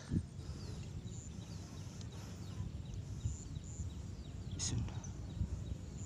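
Many short, high chirps of small birds over a low rumble of wind and handling noise, with one sharp click about three-quarters of the way through.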